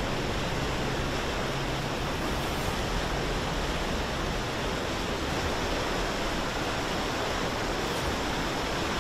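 Fast-flowing floodwater from a river that has burst its banks, rushing past buildings in a steady, unbroken noise.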